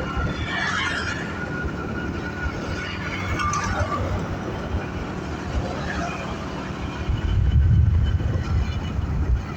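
Steady rumble of a vehicle on the move, with a louder low surge about three-quarters of the way through.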